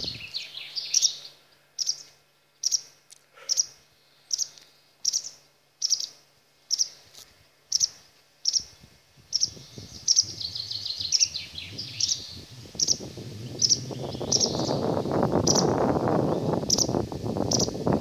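A small songbird repeats a short high chirp about every two-thirds of a second, with a few quick twittering runs in between. From about nine seconds in, a low rushing noise swells and becomes the loudest sound.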